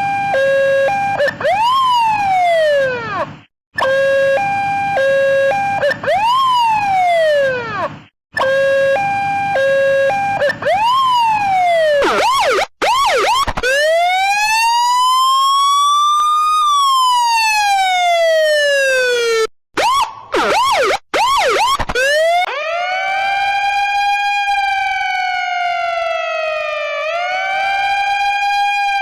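Emergency-vehicle sirens in a string of spliced clips. A two-tone hi-lo siren breaks into a quick rising-and-falling whoop three times, with short silent cuts between. Then come a long wail that climbs for several seconds and falls away, a burst of fast yelps, and near the end a lower wail that rises and falls twice.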